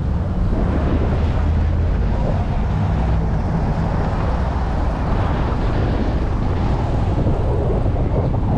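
Steady rumble of a moving vehicle's road and engine noise, with wind buffeting the microphone.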